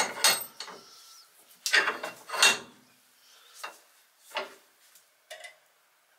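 A series of sharp metal knocks and clinks from working a steel bench vise: a workpiece set in its jaws and the vise handle turned to clamp it. The loudest knocks come in the first few seconds, with softer ones later.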